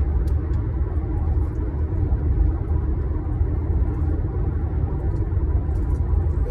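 Steady low rumble with a few faint scattered clicks.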